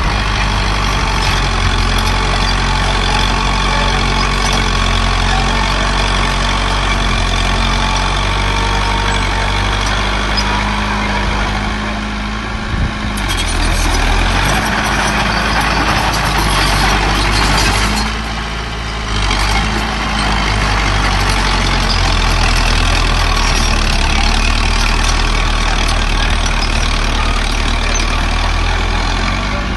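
Heavy diesel engine of earth-moving machinery running steadily, with several seconds of harsher, louder noise about halfway through.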